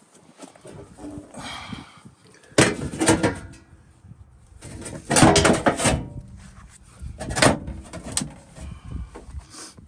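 Loose sheet-metal replacement floor pan being shifted and knocked into place in the car's floor: several bursts of rattling, thumping sheet steel, the loudest about two and a half and five seconds in.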